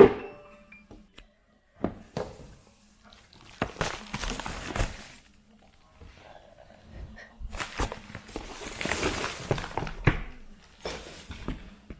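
Packaging handled by hand: a few soft knocks, then several spells of rustling and crinkling from a padded paper mailer and a paper instruction sheet being handled.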